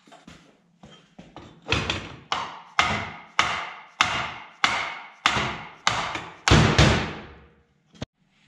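Mallet blows on a metal part of a Bridgeport vari-speed head: a few light taps, then about ten hard strikes roughly two a second, each ringing briefly, the last ones loudest. The blows knock a worn bearing out of the part.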